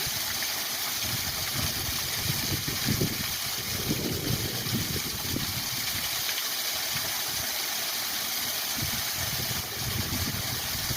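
Waterfall rushing steadily, with an uneven low rumble underneath.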